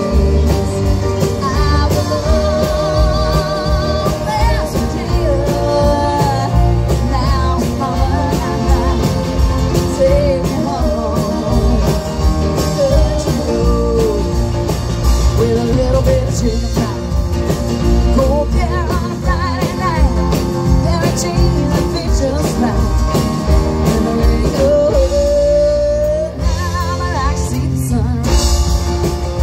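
Live country-rock band playing through a PA: acoustic and electric guitars, keyboard and drums, with a woman singing lead.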